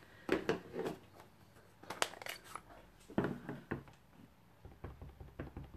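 Scattered light clicks and taps of plastic stamping supplies being handled: a stamp ink pad's case and a clear acrylic stamp block picked up and set against each other, in several short clusters.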